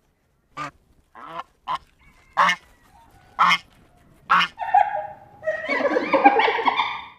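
Geese honking: six short, separate honks over the first four and a half seconds, then a louder burst of overlapping calls near the end.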